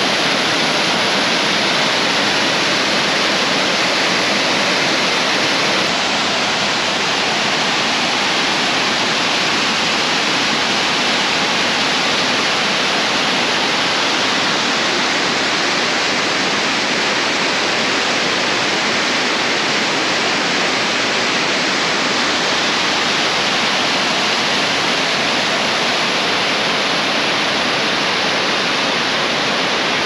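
Steady rush of a waterfall, loud and unbroken, with its sound shifting slightly about six seconds in.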